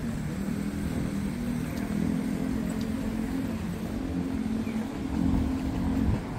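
City road traffic: motor vehicle engines running, a steady low hum with no single event standing out.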